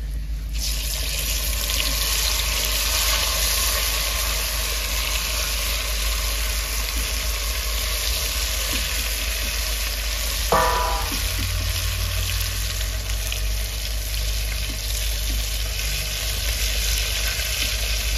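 Samosas deep-frying in hot oil, a loud, steady sizzle that starts suddenly within the first second. A brief, sharper sound cuts through about ten seconds in.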